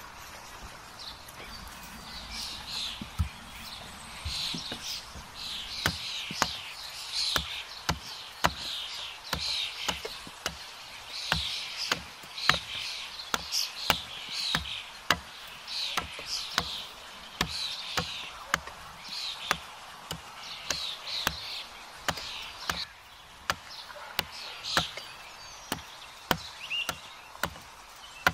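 Hatchet chopping into the end of a thin wooden pole held upright on a tree stump. Sharp wooden knocks start a few seconds in and come about once a second.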